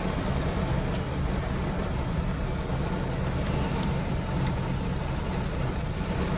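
Heavy rain falling on a car's roof and windows, heard from inside the cabin as a steady hiss over a constant low rumble.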